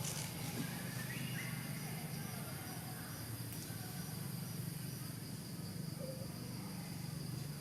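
Outdoor ambience: a steady low hum with a faint high insect drone and a few faint bird chirps.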